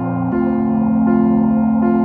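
Ambient keyboard music: sustained chords with a soft note repeating about every three-quarters of a second, the bass chord shifting a moment in.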